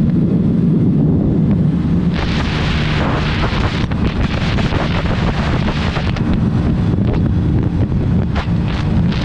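Wind buffeting the microphone of a scooter riding at speed, with a steady engine hum underneath. The wind hiss swells in gusts from about two seconds in and again near the end.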